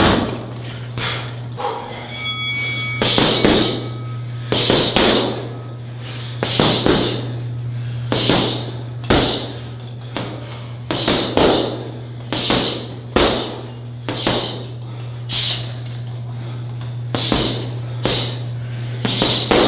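Punches and kicks landing on a heavy bag in uneven combinations, a thud about every second, over a steady low hum.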